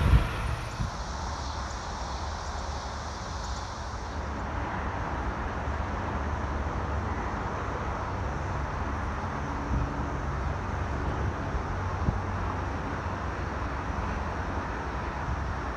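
Steady low outdoor rumble with wind on the microphone, and a thin high hiss for the first few seconds that then drops away.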